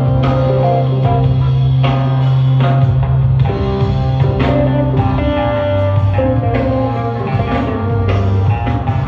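Rock band playing live, an instrumental passage with electric guitar, bass and drum kit keeping a steady beat.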